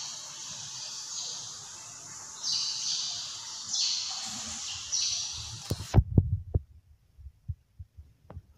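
Short high hissing bursts, roughly one a second. Then the sound goes abruptly muffled, and a cluster of loud low knocks and thumps follows from fingers handling the phone that is recording.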